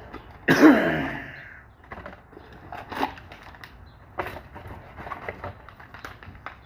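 A small cardboard blind box and its plastic bag being handled and opened: scattered clicks, taps and rustles. A louder sound lasting about a second, falling in pitch, comes about half a second in.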